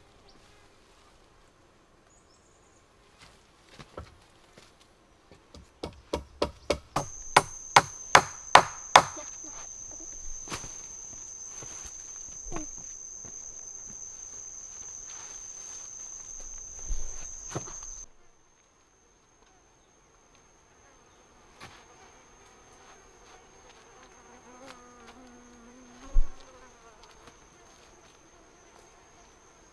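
A run of sharp chopping knocks, a machete striking bamboo about two to three times a second for a few seconds. Over it, a steady high-pitched insect buzz starts, cuts off abruptly and carries on fainter. A single thump comes near the end.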